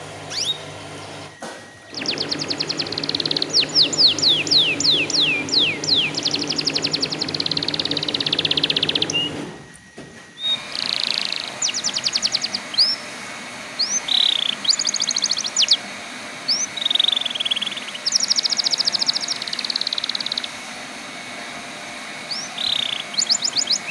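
Domestic canary singing: fast trills of rapidly falling notes and short rolls, in phrases with brief pauses between them. The song breaks off abruptly about ten seconds in, then carries on.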